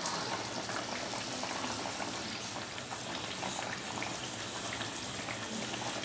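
Watery fish-curry gravy boiling in a kadai, a steady bubbling hiss with faint small crackles.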